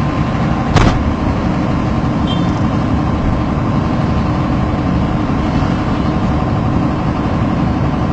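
Steady low engine and road rumble of a motor vehicle, with one sharp knock about a second in.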